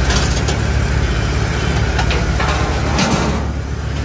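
Kubota DC70H combine harvester's diesel engine idling steadily, with a few short sharp clanks over it.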